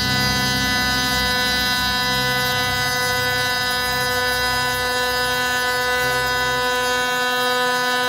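6090 CNC router's spindle running with a steady, many-toned whine while its end mill cuts solid brass, with a lower hum that comes and goes every second or so.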